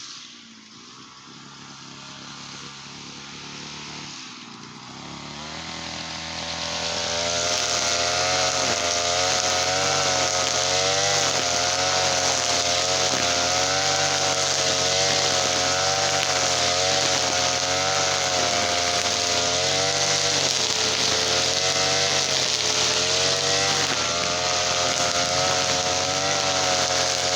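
Brush cutter's TL33 two-stroke engine speeding up over the first several seconds, then held at high revs, its pitch wavering slightly.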